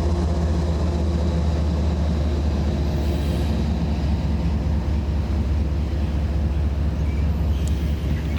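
BNSF freight train with its diesel locomotives running, a steady low drone with a higher hum that fades about three and a half seconds in.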